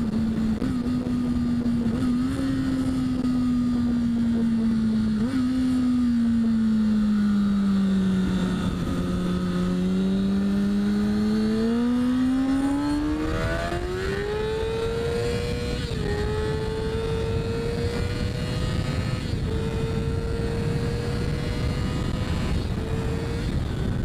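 Kawasaki Ninja ZX6R inline-four engine running under way, heard from the rider's seat with wind rush over the microphone. Its note sags slowly for several seconds, then climbs steadily to a much higher pitch and holds there.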